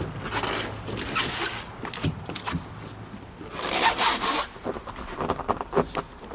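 Rustling and scraping of someone moving about and handling things, with a longer zip-like rasp about four seconds in and a run of small clicks and knocks after it.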